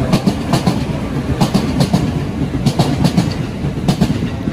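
Blue-and-cream striped JR electric commuter train rolling past a platform: a steady low rumble, with its wheels clacking over the rail joints in quick pairs every second or so.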